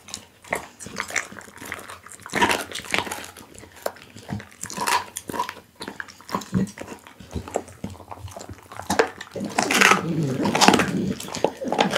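Pit bull chewing raw beef close to the microphone: wet smacking and biting with irregular crunches, loudest in clusters around the middle and near the end.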